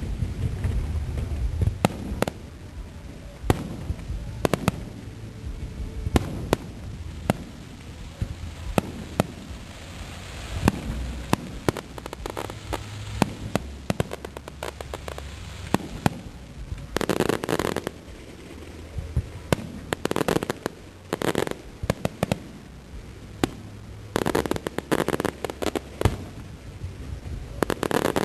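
Aerial fireworks bursting: a steady run of sharp bangs with crackling stretches and low rumbling between them, the crackle thickest in a few long bursts in the second half.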